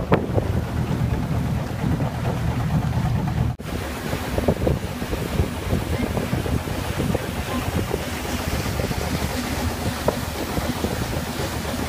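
Wind buffeting the microphone and water noise aboard a boat under way. A steady low engine hum runs through the first few seconds and cuts off abruptly about three and a half seconds in, after which the wind and water hiss is rougher.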